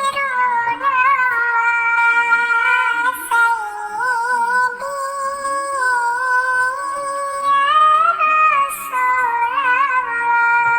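A high, synthetic-sounding voice singing a sholawat melody, holding long notes with wavering ornaments and brief breaks between phrases.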